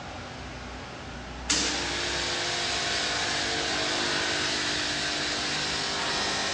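Steady machine whirring and hissing with a few faint steady tones in it. About one and a half seconds in it steps abruptly louder and brighter.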